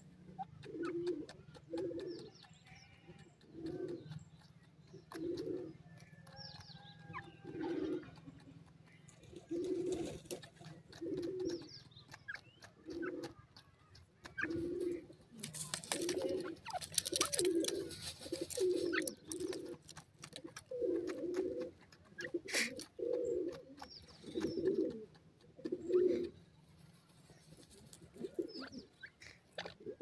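A bird's low, soft cooing calls repeating about once a second throughout. Scratchy rustling in loose dirt near the middle comes from the dust-bathing birds, and a few faint high chirps sound in the background.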